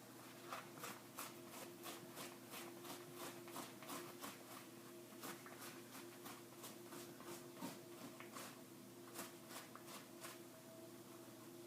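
White cloth rubbed back and forth over the stains: faint scrubbing strokes about three a second, stopping shortly before the end, over a steady faint hum.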